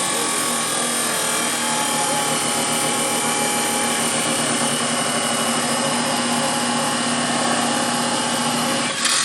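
A power tool running steadily at full speed, cutting off suddenly near the end.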